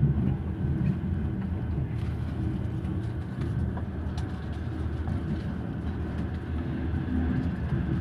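Sleeper train running along the track, a steady low rumble heard from inside the carriage, with a few faint clicks.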